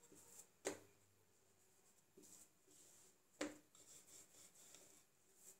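Very quiet dough work on a countertop: faint rubbing as a wooden rolling pin rolls out a small ball of dough, with two light knocks about three seconds apart.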